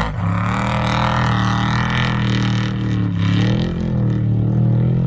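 Vehicle engine running at fairly steady revs, a low droning note whose pitch dips briefly about three seconds in.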